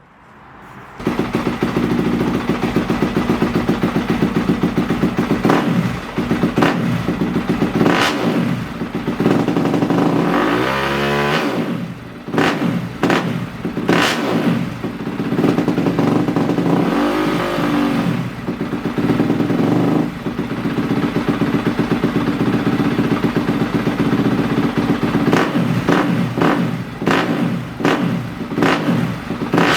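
Yamaha YZ250F's 250 cc single-cylinder four-stroke engine through its stock exhaust, idling with repeated throttle blips. One longer rev rises and falls near the middle, and there is a quick series of blips near the end.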